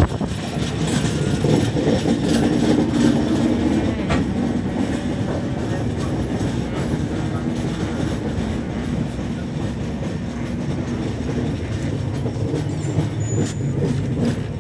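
Passenger train running, heard from inside the coach: a steady rumble of wheels on the rails, with a few sharp clicks from the track.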